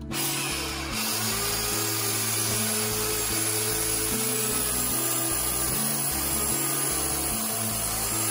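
Handheld electric narrow-belt sander (power file) running steadily as it grinds away horse hoof wall, sanding out horn damaged by white line disease. Background music plays underneath.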